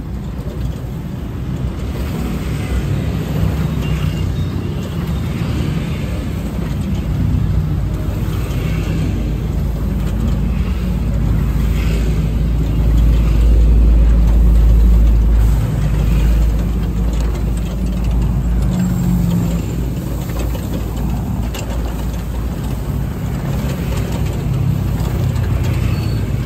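Low rumble of street traffic, swelling about halfway through as a vehicle goes by.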